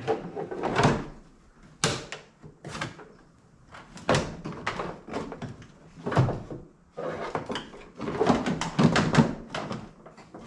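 Plastic cowl cover of a 2004 Dodge Ram 2500 being pressed down into place, giving a run of irregular knocks and clunks as its plastic hooks engage.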